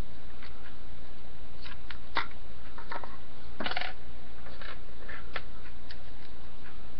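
Scattered light clicks and short scrapes of tactical body-kit parts being worked and fitted onto a Tippmann A5 paintball marker by hand with an Allen key, the loudest a brief scrape about halfway through, over a steady low hum.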